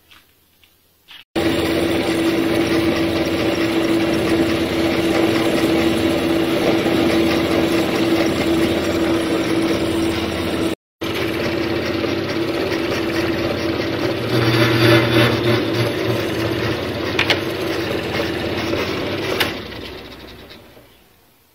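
Homemade metal lathe running: the electric motor and spindle give a steady hum with a strong single tone. It cuts out briefly near the middle, grows louder and rougher for a couple of seconds after that, and dies away near the end.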